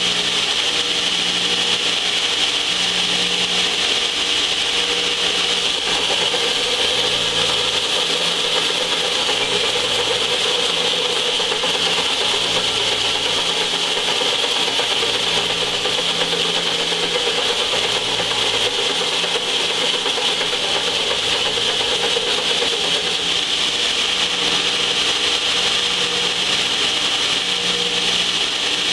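Large heavy-duty belt sander running while the flange face of a cast-iron exhaust manifold is pressed onto the belt and ground flat, a steady, continuous grinding hiss.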